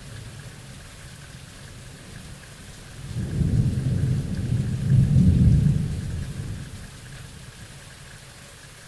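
Steady rain with a roll of thunder: a low rumble builds about three seconds in, peaks a couple of seconds later, then dies away back to the rain.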